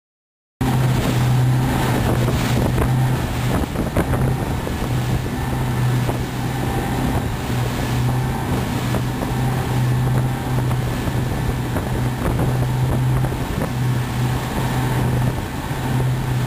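Three Mercury Verado outboard motors running steadily at cruising speed, a constant low drone, with wind buffeting the microphone and the rush of water from the wake. The sound starts suddenly about half a second in.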